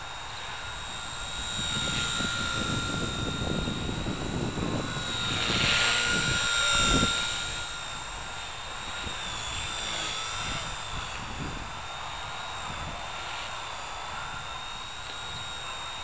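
Blade mCP X micro RC helicopter flying, its motor and rotor giving a steady high whine that wavers a little in pitch and gets louder about five to seven seconds in. Gusts of wind rumble on the microphone underneath.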